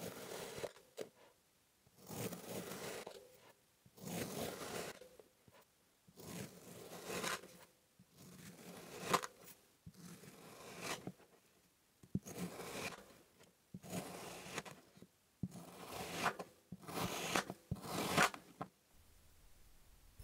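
A knife blade slicing through packed kinetic sand with a crunchy, grainy scrape, about a dozen separate cuts, roughly one every second or so, with quiet between them.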